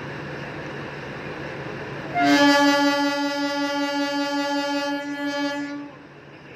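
Locomotive horn sounding one long, steady blast of about three and a half seconds, starting about two seconds in, over the steady hum of a locomotive.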